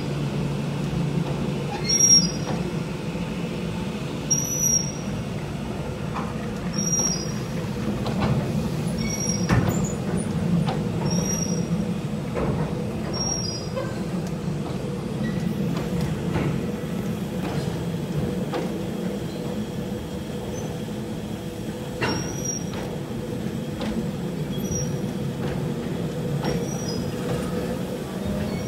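Loaded stone hopper wagons rolling slowly past, their wheels giving short, high squeals every second or two over a steady low rumble, with occasional clicks from the wheels and couplings.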